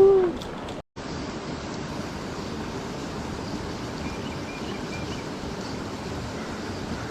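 Steady rushing of a creek's flowing water. A voice trails off at the very start, and the sound cuts out for an instant just under a second in.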